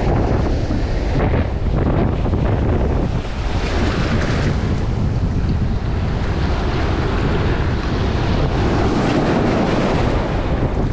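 Shallow surf washing and foaming around the legs, with wind buffeting the microphone; the wash swells a couple of times as waves come in.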